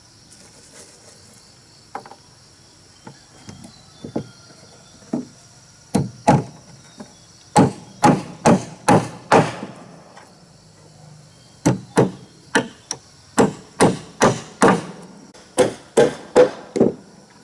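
Repeated hard strikes on wood. A few light knocks come first, then runs of four to six heavy blows about two a second, typical of hammering or pounding timber into place.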